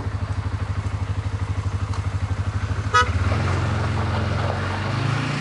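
Single-cylinder engine of a CFMoto CForce 550 ATV idling with an even, pulsing beat. About three seconds in comes a very short horn toot, and right after it the engine note rises and smooths out.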